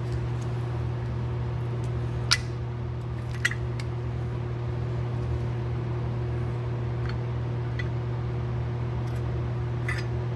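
A few light metal clicks of a screwdriver, screws and carburetor parts being handled on a workbench, the loudest about two seconds in, over a steady low background hum.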